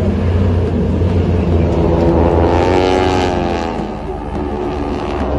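Engines of a formation of six propeller airplanes flying overhead: a steady low drone that swells about halfway through, its pitch bending down as the planes pass.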